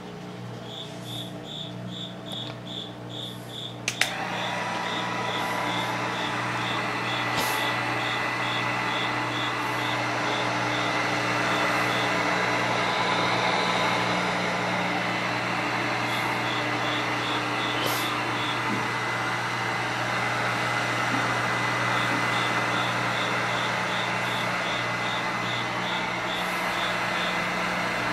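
Handheld heat gun switched on with a click about four seconds in, then running steadily with a rushing blow of air and a thin whine as it is played over freshly poured epoxy resin to level it and pop bubbles.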